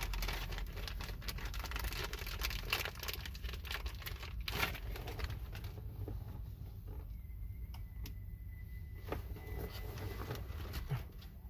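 Plastic wiring-harness and antenna-adapter connectors and loose wires being handled and plugged in: a dense run of small clicks and rustling, thinning out about halfway through. A faint high steady tone is heard for a few seconds in the second half.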